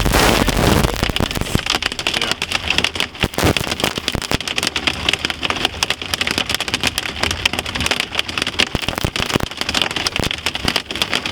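Hail pelting a car's roof and windshield while driving: a dense, irregular clatter of many small ice impacts.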